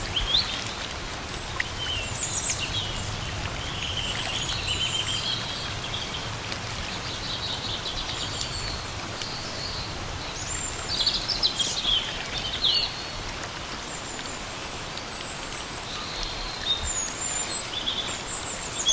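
Steady rain falling in a forest, with birds chirping and calling over it on and off, busiest around the middle and near the end.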